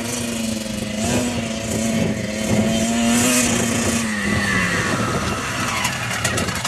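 Kawasaki KX125 dirt bike's 125cc two-stroke single-cylinder engine running at steady revs, then the revs falling away about four seconds in as the bike slows.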